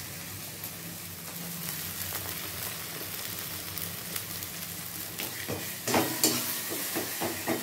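Spice paste sizzling in hot oil in a metal kadai, with a metal spatula scraping and knocking against the pan several times near the end. The oil has separated from the masala, the sign that the paste is fried through.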